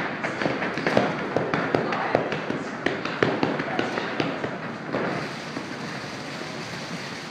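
Heavy battle ropes slapping a rubber gym floor in a steady rhythm, about two to three slaps a second, getting fainter about five seconds in and blending into a rushing noise.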